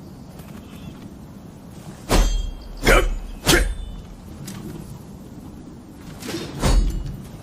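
Naginata combat sound effects: sharp weapon strikes with a metallic ring and a low thump. There are three in quick succession about two seconds in, then a double strike near the end.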